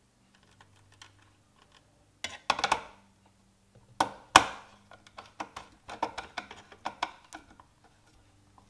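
Screwdriver and wire leads clicking and knocking against the metal terminal blocks of a rotary phase converter's control panel as the leads are fitted and the terminal screws tightened. A rattly cluster of clicks comes about two seconds in, two sharp knocks follow around four seconds, then a run of lighter clicks.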